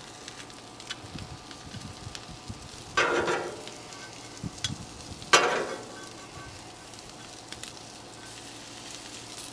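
Cheese-filled corn tortillas frying on a hot Blackstone flat-top griddle: a steady sizzle, with two short, louder bursts about three and five seconds in.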